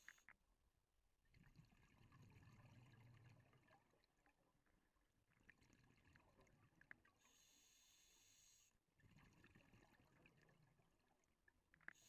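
Faint scuba diver's breathing through a regulator, muffled by the camera housing. A rumbling stream of exhaled bubbles comes about a second in, a hissing inhale about seven seconds in, then another burst of exhaled bubbles.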